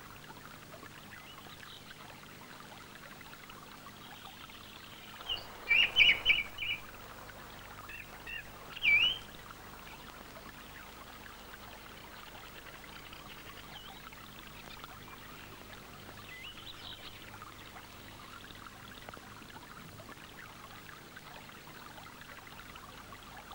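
Faint steady flow of river water, with a cluster of short high bird chirps about six seconds in, another call near nine seconds, and fainter calls later.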